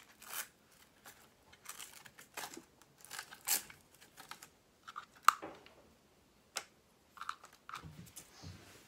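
Hands fitting a battery pack and its strap into an RC truck chassis: irregular rustling, scraping and small plastic clicks, the loudest a sharp click about five seconds in.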